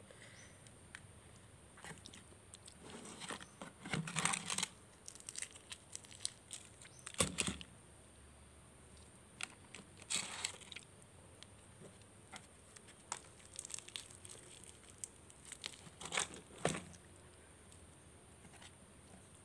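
Hands tearing apart a piece of crispy fried chicken and handling it in a paper-lined cardboard box, in four short noisy bouts.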